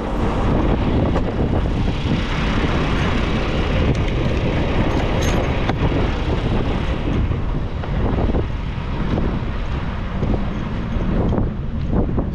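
Peterbilt 579 semi truck's diesel engine idling, left running to keep the cab cool, under a rough rush of wind on the microphone that eases a little over halfway through.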